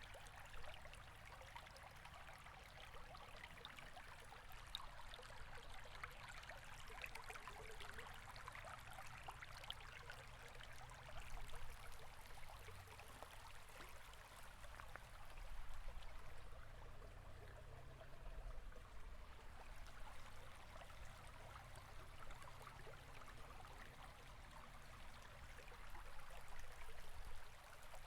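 River water running steadily over rocks, a continuous babbling rush with small swells now and then.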